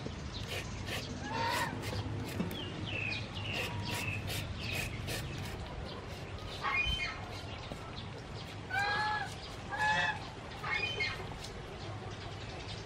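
Domestic fowl calling outdoors: four short, pitched calls in the second half, with smaller falling bird chirps earlier.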